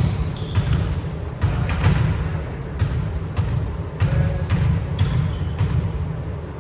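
Volleyball play in a gym: the ball being struck and hitting the floor again and again, with short high squeaks that are likely shoes on the court, over a steady low rumble.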